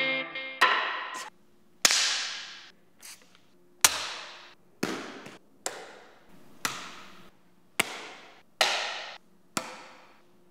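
Foley sound effects for a handshake: about ten sharp slaps and knocks, roughly one a second, each made with a different hand-held prop and dying away quickly.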